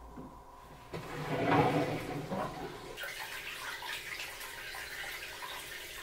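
Top-loading washing machine running through its tub-cleaning cycle, water swishing around the drum. The water grows louder about a second in, then settles into a steady rush from about three seconds on.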